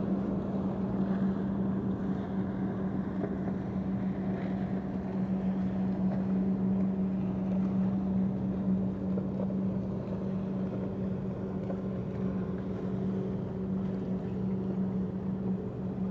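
Steady engine drone holding one low pitch without rising or falling, over a background hiss.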